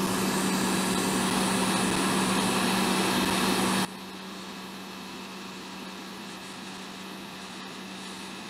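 Hot air rework station blowing steadily with a constant low hum, heating thermal paste at 200 degrees. About four seconds in the sound drops abruptly to a quieter steady level.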